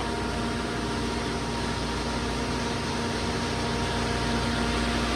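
FMC M10000 ground air-conditioning unit running steadily: an even rush of air with a constant machine hum.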